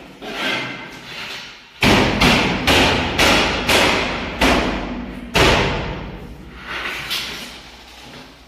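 A run of about seven loud knocks, roughly half a second apart, on a metal window frame being worked in its wall opening, each ringing on in the bare room.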